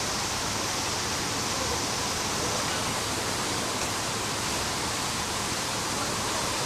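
Steady, even rushing hiss with no separate sounds standing out.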